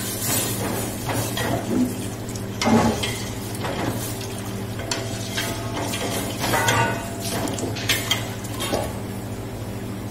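A ladle stirring and scraping around the inside of a stainless steel pot on a gas burner, with irregular clinks against the metal, over a steady low hum.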